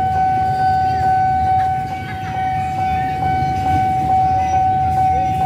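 Railway level-crossing warning alarm sounding one steady high tone without a break, over a low rumble, as the crossing warns of an approaching train.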